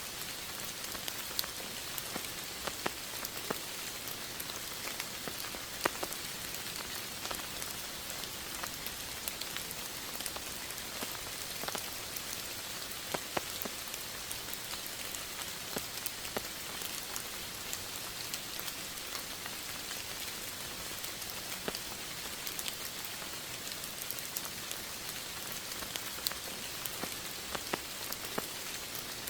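Steady rain, with many individual drops ticking sharply on a surface through a constant hiss.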